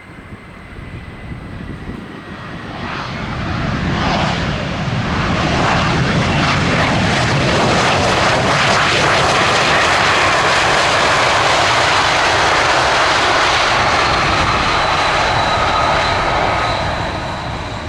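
Mitsubishi CRJ-900 regional jet passing on its landing, its two rear-mounted GE CF34 turbofans building from a distant whine to a loud, steady rush with a thin high whistle about four seconds in, then easing off near the end.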